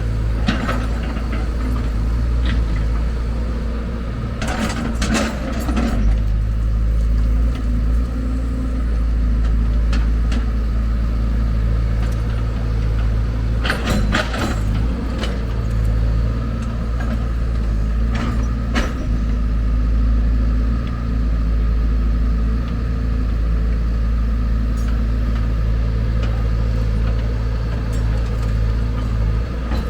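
Heavy diesel engines of a wheel excavator and dump truck running steadily, with three short bursts of clatter and knocks: about four seconds in, around fourteen seconds, and once near nineteen seconds, as material is loaded into the truck.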